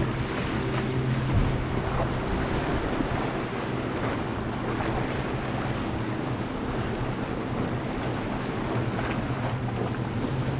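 A steady low engine hum under wind buffeting the microphone and sea noise.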